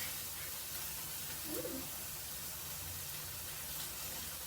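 Food frying in a pan, a steady sizzle.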